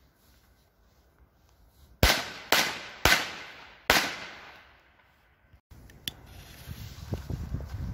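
Arka Tiger Thunder firecrackers going off: four loud, sharp bangs in under two seconds, each echoing away.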